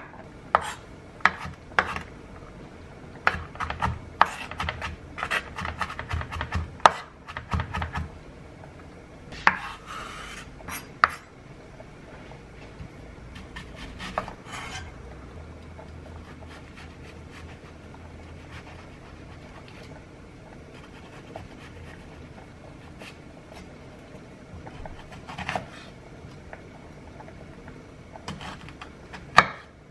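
Chef's knife chopping on a wooden cutting board: a quick run of sharp knocks as garlic cloves are sliced and minced. It is followed by a quieter stretch with a few scattered knocks while an onion is halved, then another short run of knocks near the end as the onion is sliced.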